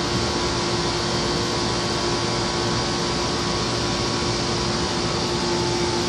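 Outdoor central air conditioner condenser units running: fan blowing with a steady compressor hum. The compressor sounds bad, which the owner takes for a compressor going out.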